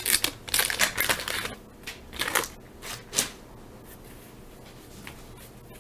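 Waxed-paper wrapper of a 1983 Topps baseball card pack crinkling as it is torn open, then a few soft clicks and rustles as the cards are handled.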